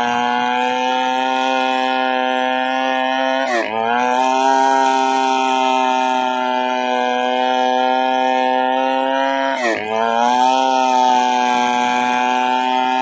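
Chainsaw engine running steadily at high revs, its pitch dipping sharply and recovering twice, about three and a half seconds in and again near ten seconds.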